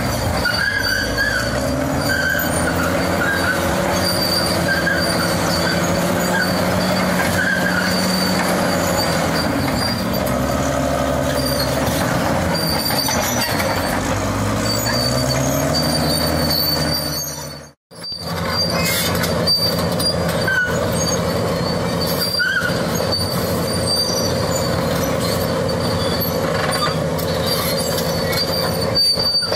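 Caterpillar D6 crawler bulldozer working rock: the diesel engine is under load, its pitch rising and falling, while the steel tracks squeal and clank. The sound drops out sharply for a moment about two-thirds of the way through, then the same machine sound resumes.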